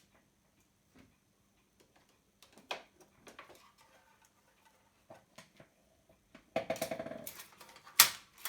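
Small clicks and knocks of parts and wires being handled on a workbench, with a quick rattle a little after six seconds in and one sharp, louder click near the end.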